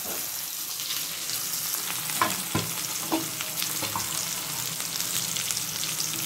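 Potato, green banana and soya chunks sizzling in hot oil in an aluminium kadai, a steady frying hiss. A few sharp knocks of metal utensils against the pan come in the middle.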